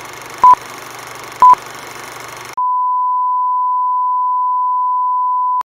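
Film-leader countdown beeps, two short beeps a second apart over a steady hiss, then the colour-bars test tone: one steady high tone starting about two and a half seconds in, held for about three seconds and cut off sharply.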